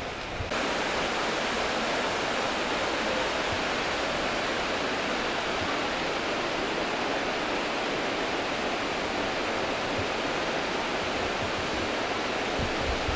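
River water pouring over a weir, a steady rushing that starts abruptly about half a second in.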